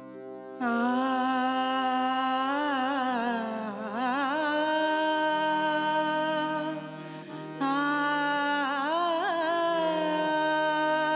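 A woman sings a wordless, ornamented opening phrase of a Marathi devotional abhang over a steady drone accompaniment. Her voice glides and wavers in pitch across three long phrases, with short breaths between them.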